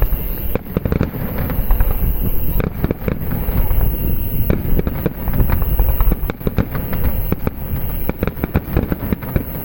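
Aerial fireworks bursting in quick succession: many sharp bangs and crackles overlapping, over deep booms.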